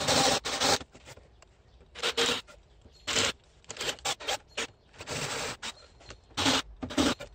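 Cordless drill with a flat spade bit boring shallow holes into a timber decking board, run in short bursts of a second or less with pauses between.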